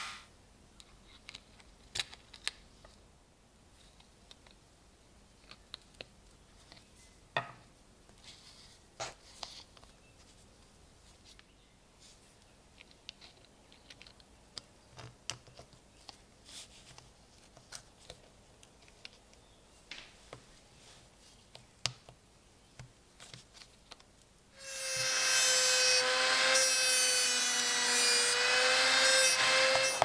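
Small metal and antler parts of a miniature pocket knife clicking and tapping faintly as they are handled and fitted together. About 25 seconds in, a power tool's motor starts with a loud, steady whine.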